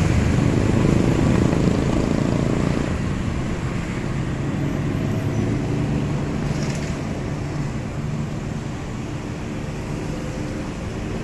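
Street traffic: a motor vehicle's engine running close at first, then fading over several seconds as it moves away, over a steady traffic hum.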